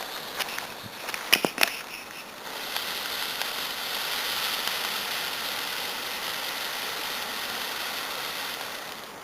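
A lit ground firework giving off a few sharp crackles, then a steady hiss as it sprays sparks for about six seconds, dying down near the end.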